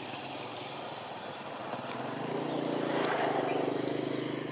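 A vehicle engine running steadily. It grows louder from about two seconds in.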